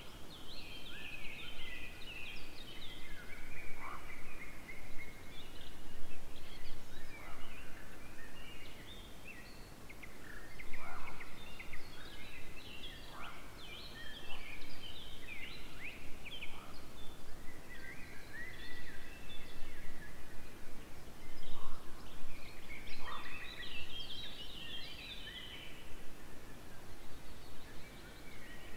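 Several birds singing: a dense, continuous tangle of quick high chirps and trills, with now and then a lower note sliding downward, over a faint steady outdoor hiss.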